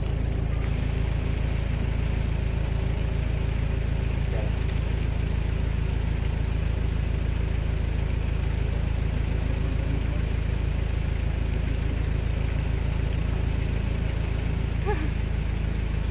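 Vehicle engine idling steadily, heard from inside the cab.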